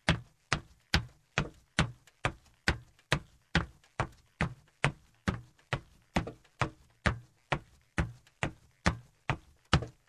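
Footsteps walking at a steady, brisk pace on a metal surface, about two and a half steps a second. Each step is a sharp metallic clank with a short ringing tail.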